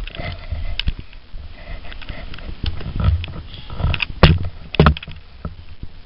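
Handling noise from a handheld camera held close: low rumbling rubs with scattered clicks, the two loudest about four and five seconds in.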